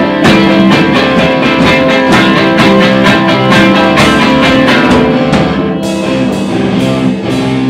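Instrumental soul-blues from two guitars, rhythm and lead, over a drum kit. The drum strokes thin out about six seconds in as the guitars carry on.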